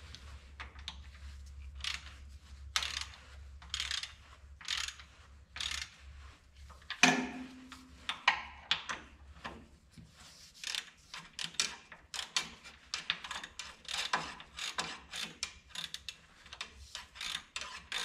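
Hand socket ratchet clicking in short quick bursts as connecting rod cap bolts are run down snug, with one louder metal clank a little before halfway.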